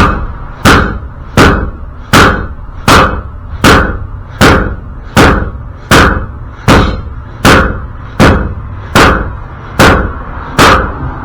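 Steady run of heavy hammer blows on metal, about fifteen strikes at roughly one every three-quarters of a second, each ringing briefly. The blows are driving at a stuck wheel bearing and retaining ring that will not come out without a press.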